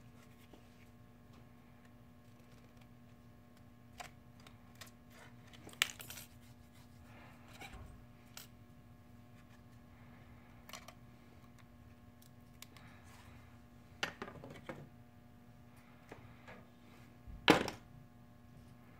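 Small hand tools and phone parts clicking and tapping on a work surface during smartphone disassembly, scattered and irregular, with a sharper click about six seconds in, a cluster about fourteen seconds in and the loudest tap near the end.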